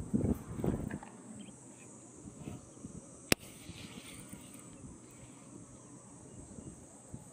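Footsteps in the first second, over a steady high insect chorus. About three seconds in there is a single sharp click.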